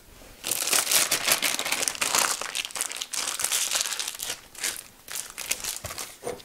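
Large plastic piping bag full of filling crinkling and rustling as it is handled and twisted shut: dense crinkling for about three seconds, then scattered crackles.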